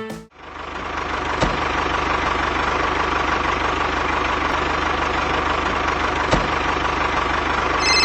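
Tractor engine running steadily at idle, with a fast even pulse and two faint knocks. A phone starts ringing just at the end.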